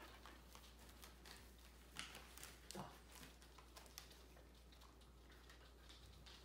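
Near-silent room tone with a few faint ticks and soft rustles, the two plainest about two and three seconds in: dogs moving about and nosing plastic-wrapped packs of toilet paper.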